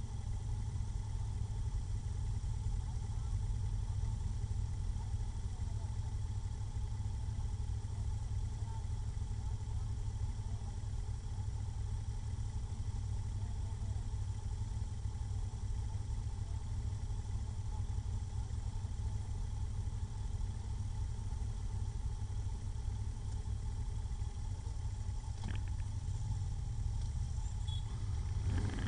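Motorcycle engine idling steadily with a constant low rumble. There is a brief click about 25 seconds in, and a slight change near the end.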